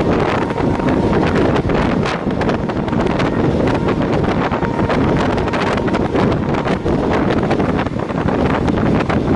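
Passenger train running at speed: wind buffeting the microphone over the steady rumble of the coach, with frequent rattles and knocks from the wheels and running gear on the track.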